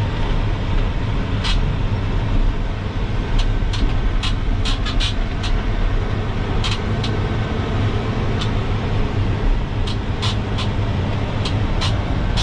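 Empty dump truck driving, its engine running steadily under road noise, with scattered short clicks and rattles.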